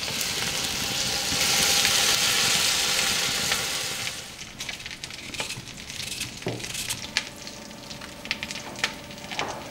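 Cidre poured into a hot pot where veal is browning in butter, sizzling loudly: the hiss swells to a peak around two seconds in and dies away about four seconds in. Scattered short clicks and taps follow.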